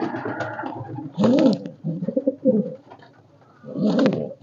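Domestic pigeon cooing: three bouts of low coos, about a second in, around two seconds in, and near the end.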